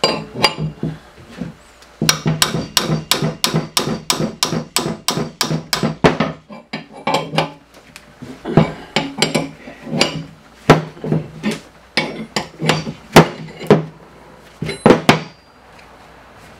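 Rapid metal-on-metal tapping and knocking on a bushing press clamped to a steel lower control arm, as the press and pry bar are worked to free a tight fit. The strikes come in quick runs of about six a second, with short pauses near the start, about seven seconds in, and near the end.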